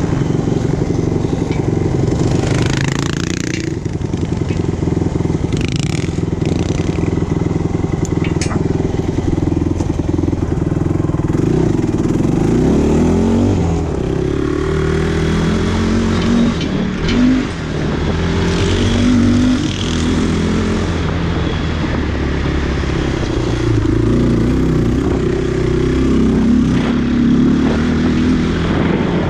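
Dinli A450 quad's engine running under load, its pitch rising and falling as the throttle is opened and eased along the dirt track.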